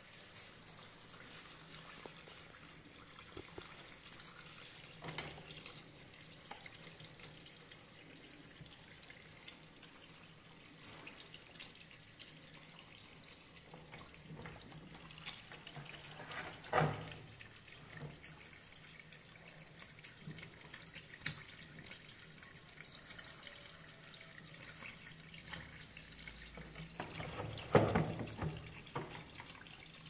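Water running into the wash tub of a semi-automatic washing machine converted to fill automatically. A few short knocks sound over it; the loudest come about halfway through and near the end.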